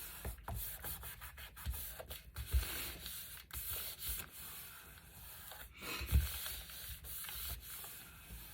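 Paper being rubbed and slid against paper and the tabletop, a steady scratchy friction sound with a few soft thuds, the loudest about six seconds in.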